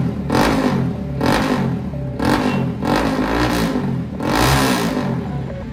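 Motorcycle engine revved in repeated short throttle blips, about one a second, the pitch rising and falling with each.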